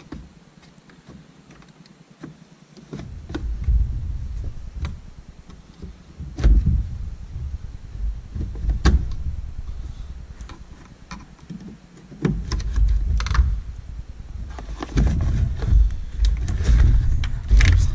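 Plastic clicks and knocks of a Dodge TIPM fuse box being unlatched from its mount with a flat-blade screwdriver and lifted and shifted about in the engine bay. There is a low rumble of handling under them, beginning about three seconds in.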